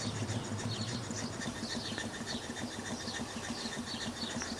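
Stuart No. 8 horizontal model mill engine running smoothly on compressed air. It makes a quiet, fast, even chuff of air exhausting from the cylinder with each stroke.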